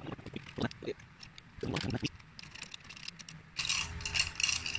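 Metal pliers scraping and clinking against bolts in a small plastic tub of liquid whitening solution, working the gold-coloured bolts to turn them silver. There are a few light knocks in the first two seconds, then a dense burst of scraping near the end.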